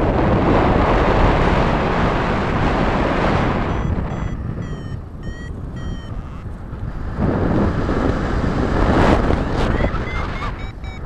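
Wind buffeting the microphone in flight, loudest at first. From about four seconds in, a paragliding variometer beeps in a series of short, slightly rising tones, and it comes back faster near the end: the climb tone that signals the glider is in lift.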